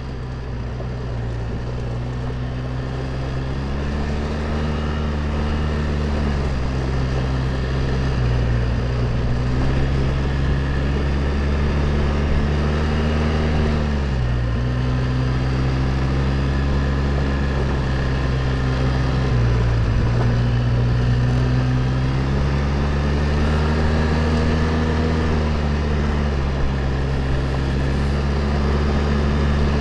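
Quad bike (ATV) engine running under way, its pitch rising and falling several times as the throttle is worked along the trail.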